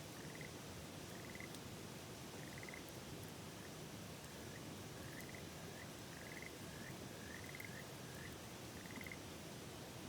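Frogs calling in short pulsed chirps, about a dozen, bunched toward the middle and second half, over the steady rush of a river, with a few faint crackles from a campfire.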